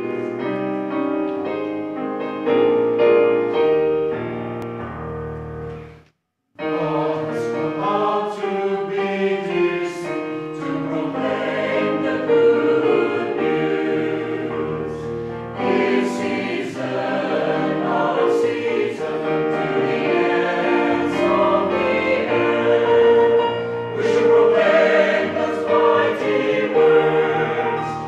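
A college anthem: about six seconds of held instrumental chords, a brief pause, then a choir singing the anthem in parts.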